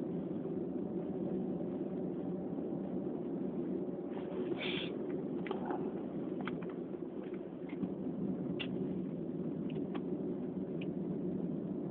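Steady low background hum with a few faint, short clicks scattered through it.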